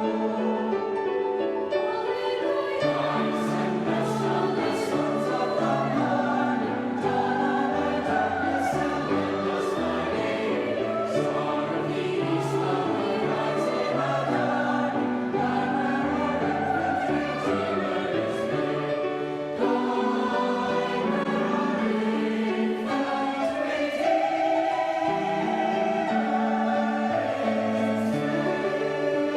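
Youth choir singing a choral anthem in held, stepwise-moving chords, with sung consonants audible at phrase changes.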